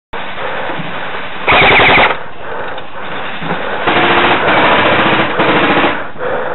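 Bursts of full-automatic gunfire: one short burst about a second and a half in, then three bursts in quick succession near the end, over a steady noisy background.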